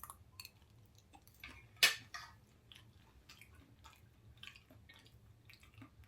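A person chewing food, with small wet mouth clicks throughout and one louder crunch about two seconds in.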